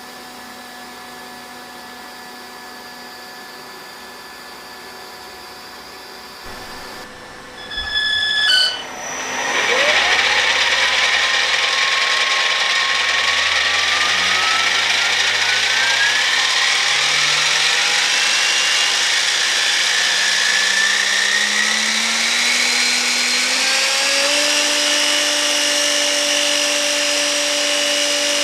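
3D-printed centrifugal turboshaft model with its propeller spinning up on a thrust test: a quiet steady hum, a few short sounds, then about a third of the way in a loud whine that climbs steadily in pitch for around fifteen seconds before holding steady at speed near the end.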